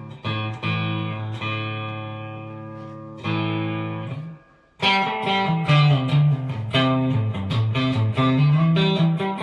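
Fender Player Series Stratocaster electric guitar played with a clean tone on the neck pickup: a few strummed chords left to ring, a short break about four and a half seconds in, then a quicker run of picked single notes.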